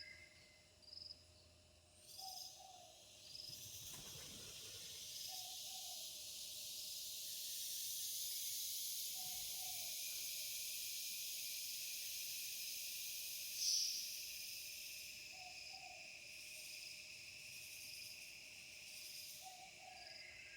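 Steady high chorus of night insects buzzing and chirping. Over it a soft two-note hoot repeats every three to four seconds, and a single sharp high call sounds about two-thirds of the way through.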